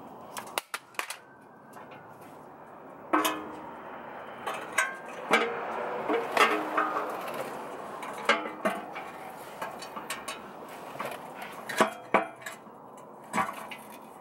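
Irregular metallic clinks and knocks as a Jeep Wrangler JK's upper oil pan, with its gasket, is held up against the crankcase and its bolts are fitted by hand. Some knocks ring briefly.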